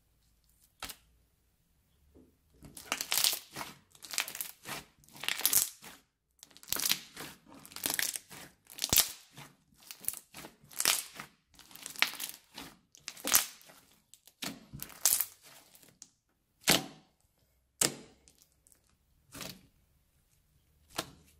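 Hands squeezing, folding and stretching crunchy beaded slime: bursts of crackling and popping, about one a second. After a quiet first two seconds they run steadily, then thin out to a few separate sharp pops near the end.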